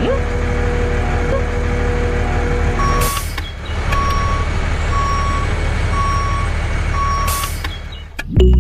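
Heavy truck engine running steadily, then a short air-brake hiss about three seconds in, followed by a reversing alarm beeping about once a second and a second air-brake hiss; music comes in at the very end.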